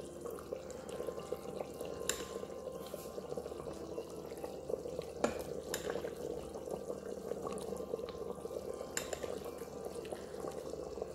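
Curry being ladled out of a stainless steel Instant Pot inner pot: liquid sloshing and dripping from the ladle, with a few sharp clinks of the metal ladle against the pot.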